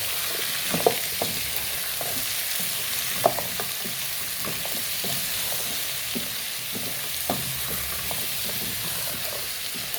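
Stew ingredients (beef, onion, potatoes and tomatoes) frying in oil in a pot with a steady sizzle, stirred with a spoon that knocks against the pot now and then.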